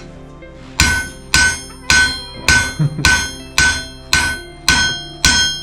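A hammer striking metal in a steady rhythm, about two ringing blows a second, starting about a second in.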